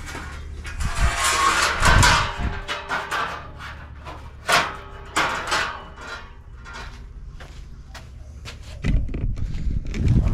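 Sheet metal being bent over a length of steel tubing: irregular knocks and clanks, with a longer scraping rattle of metal about a second in.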